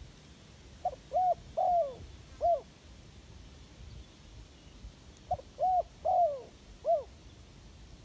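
Spotted dove cooing: two phrases about four seconds apart, each a short note followed by three coos, the third coo drawn out and falling.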